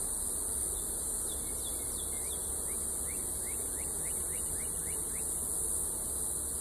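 A steady, high-pitched chorus of insects shrilling without a break. Through the middle, a run of short falling chirps repeats every few tenths of a second.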